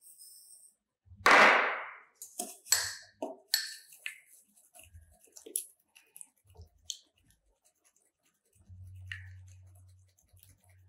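Sugar poured from a plate into a ceramic bowl of egg whites, a brief rush about a second in, followed by a wooden fork beating the egg whites with irregular clicks and scrapes against the bowl.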